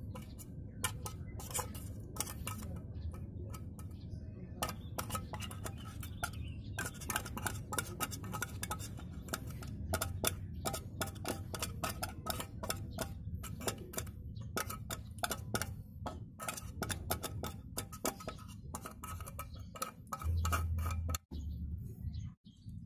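A metal spoon scraping and clicking against the inside of an opened tin can as its contents are scooped out, in many quick irregular taps.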